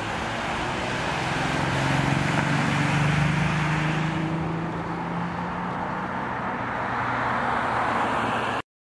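Road traffic: a car's engine and tyre noise, swelling about two to three seconds in as it passes, then easing to a steady hum. It cuts off abruptly just before the end.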